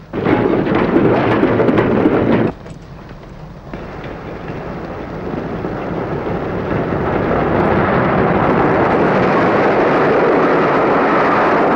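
Steam-hauled passenger train approaching and passing at speed, a rushing rumble that builds over several seconds and stays loud near the end. A short loud stretch of the same kind of noise opens, then drops away after about two and a half seconds.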